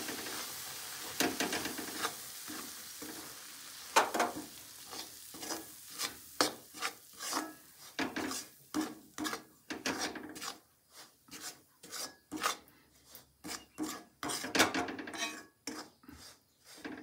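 Whole wheat flour being roasted in ghee in a steel kadhai, stirred with a perforated steel spatula: repeated scraping strokes of the spatula across the pan, about two a second. A faint sizzle of the ghee fades in the first few seconds as the flour soaks it up.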